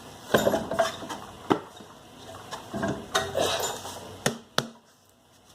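Tools and metal parts being handled during hands-on car repair: scattered metallic clatter and a few sharp knocks, the last two close together about four and a half seconds in.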